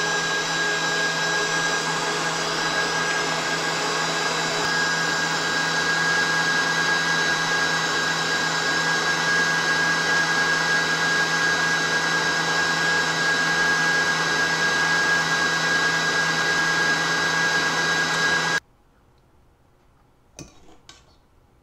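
KitchenAid Professional stand mixer running on high, its wire whisk beating egg whites into meringue: a steady motor whine with several fixed tones. It cuts off sharply near the end.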